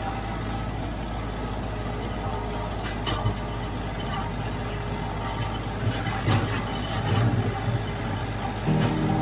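Kioti CK3510SE diesel tractor running steadily under load, driving a flail mower, with a few knocks and clatters over the drone. Music comes in near the end.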